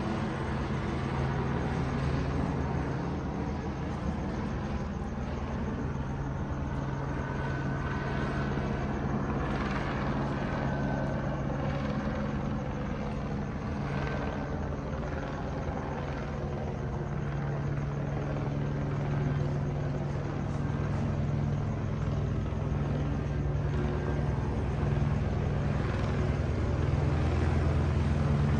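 Police helicopter overhead, its rotor and engine droning steadily, growing louder near the end.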